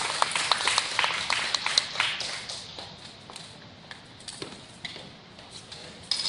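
Audience clapping, dense at first, then thinning after about two seconds to a few scattered claps.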